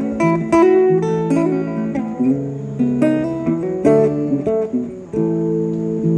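Solo acoustic guitar playing, picked and strummed chords changing about every second.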